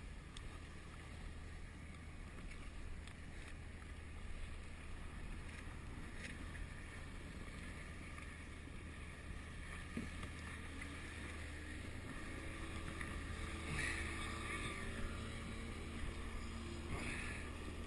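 Water lapping and sloshing around a plastic sit-on-top kayak, with wind rumbling on the camera microphone. A faint steady hum joins about two-thirds of the way in.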